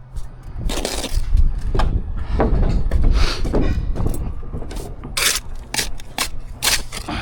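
Bricklayer's trowel working mortar: a run of short scrapes and knocks, with a low rumble underneath.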